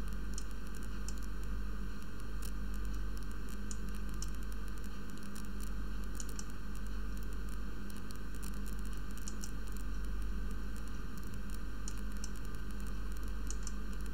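Steady hiss and low mains hum from a desk microphone, with faint computer mouse clicks scattered through it.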